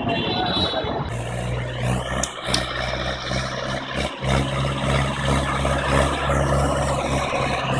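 For about the first second, an Eicher 485 tractor's three-cylinder diesel engine running. Then a Mahindra 575 DI tractor's diesel engine runs steadily under load, pulling a disc harrow through dry soil.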